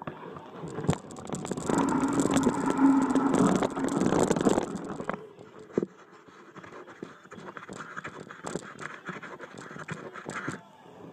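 Mountain bike rolling down a loose dirt and gravel trail: tyres crunching over stones and the bike rattling with many sharp clicks, loudest from about two to five seconds in, then quieter.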